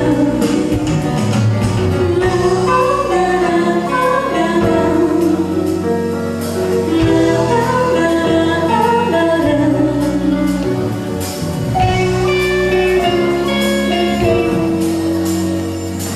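Live pop song: a woman singing lead over keyboard and band accompaniment.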